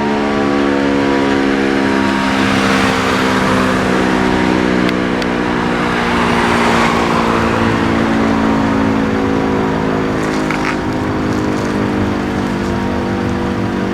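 E57 electromechanical civil-defence siren sounding its public-warning signal: a loud, chord-like stack of steady notes whose pitch sinks slowly. A passing car's rushing noise swells over the siren, strongest about three and again about six to seven seconds in.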